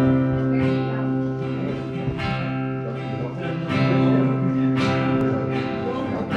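Instrumental opening of a folk song: a button accordion holds long chords, changing about two and four seconds in, over a strummed acoustic guitar.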